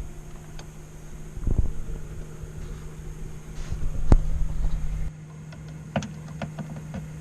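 Scattered clicks and knocks of a metal VESA monitor mount and its screws being handled and fitted, the strongest knock about four seconds in, over a steady low hum. A low rumble cuts off about five seconds in.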